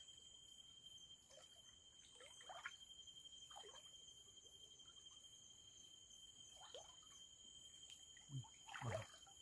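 Faint splashing and trickling of shallow water as a man wades and reaches into it, a few soft sloshes with a louder one near the end, over a steady high-pitched buzz of night insects.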